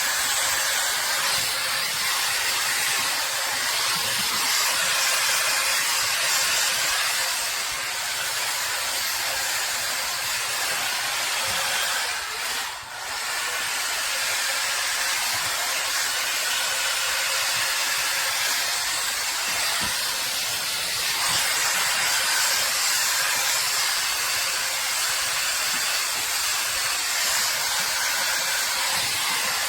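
Hair Trends Nano Titanium mini hot air brush blowing steadily: a loud rush of air over a steady motor whine, dipping briefly about twelve seconds in.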